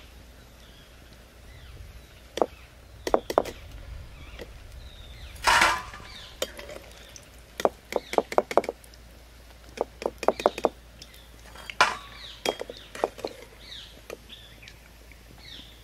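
Steel spoon knocking and clinking against a steel kadhai and a steel bowl as fried arbi-leaf roll slices are lifted out of the oil and dropped into the bowl: scattered sharp clinks, with a short clatter about five seconds in and a quick run of knocks around eight seconds.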